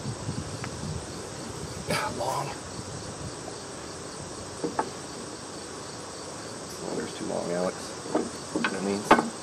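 Steady high-pitched insect chorus, with a few sharp metallic clicks and knocks from hands working a backhoe's hydraulic cylinder and pin; the loudest knock comes near the end. Brief low, muffled voices are heard in the last couple of seconds.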